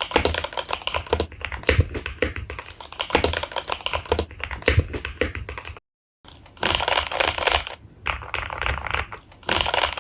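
Fast typing on a Tes-68 mechanical keyboard fitted with Gateron Milky Yellow linear switches: a dense run of keystroke clacks, broken by a brief edit cut to dead silence about six seconds in.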